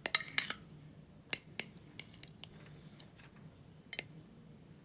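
A scattering of light clicks and taps as the egg dish and microwave are handled, several in quick succession at the start and then sparser, over a faint steady low hum.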